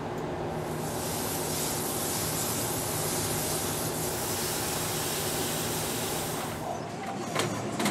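Coolant spraying hard over a crankshaft in a machining centre: a loud steady hiss over the machine's steady hum. The spray starts about a second in and cuts off near the end, followed by a couple of short clicks.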